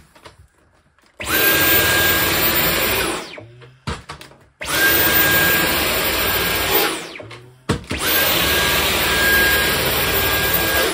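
Dyson V11 Absolute cordless stick vacuum running on its highest boost setting with the soft roller head on a rug: a loud steady suction rush with a thin high whine. It runs in three bursts of two to three seconds each, cutting off and winding down between them.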